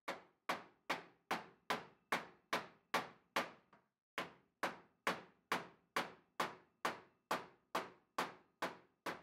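Hand hammer driving a dull chisel into steel cab floor sheet metal to crease and shape it. The blows come evenly, about two and a half a second, each with a short metallic ring, with one brief pause about four seconds in.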